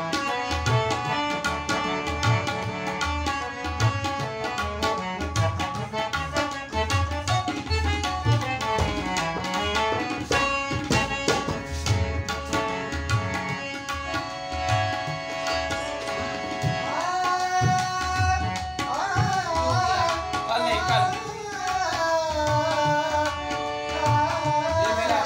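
Tabla and harmonium playing together: the harmonium holds steady reedy notes while the tabla keeps a regular rhythm of bass and treble strokes. About two-thirds of the way through, a man starts singing over them.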